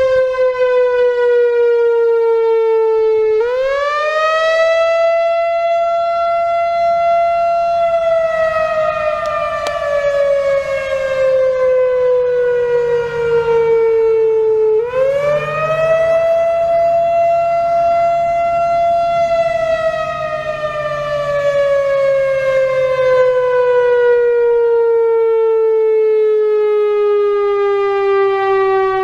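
Late-1980s Whelen WPS-4000-4 electronic outdoor warning siren, run by its original analog ESC-864 controller, sounding a wail. The tone rises quickly about 3 seconds in and again about 15 seconds in, holds high for a few seconds, then slides slowly down. The owner finds it not very loud, likely from age and a couple of blown-out drivers.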